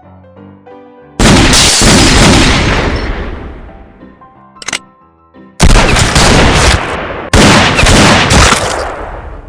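Three loud gunshot sound effects over quiet piano music, each a sudden blast with a long fading tail: one about a second in, a second past the middle and a third soon after. A short sharp click comes between the first and second.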